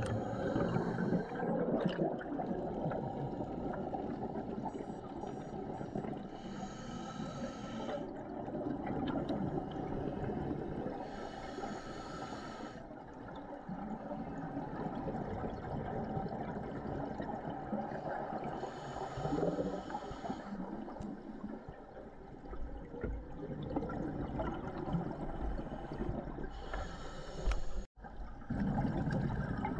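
Scuba regulator breathing heard underwater: bursts of exhaled bubbles hiss and gurgle a few times, several seconds apart, over a steady watery rumble. The sound drops out for an instant near the end.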